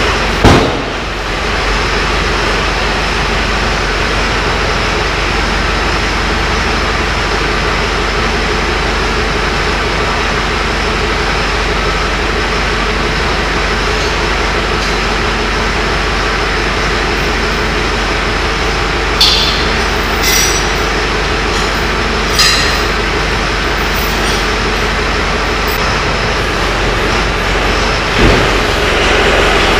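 Tractor engine running steadily at a constant speed while it drags a frozen dozer blade. There is a loud metal knock about half a second in, a few short high metallic squeals around two-thirds of the way through, and another knock near the end.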